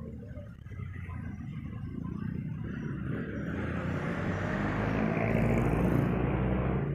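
Street traffic heard from a moving bicycle: a motor vehicle's engine hum under road noise, swelling over the second half and loudest about five to six seconds in.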